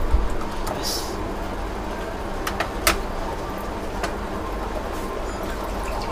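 Vermicelli in sugar syrup simmering and bubbling in an aluminium pot on a gas stove at medium flame: a steady noise with a low rumble underneath. A couple of sharp clicks come between two and a half and three seconds in.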